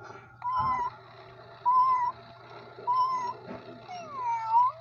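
Electronic walking cat toy giving four short electronic meows about a second apart. The last meow is longer, dipping and then rising in pitch.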